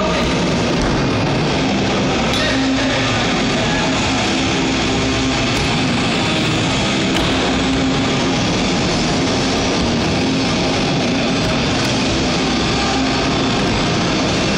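Rock music with electric guitar, playing loudly and steadily.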